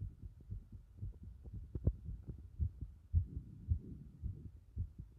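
A person's heartbeat picked up by a microphone pressed against the chest: a quick run of low thumps, a little under two a second, with one sharper tap about two seconds in.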